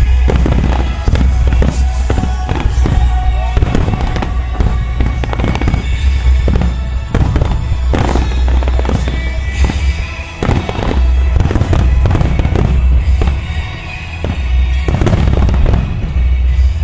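Rapid barrage of aerial firework shells bursting, many bangs close together over a heavy low booming, with music playing alongside for a music-synchronised starmine display.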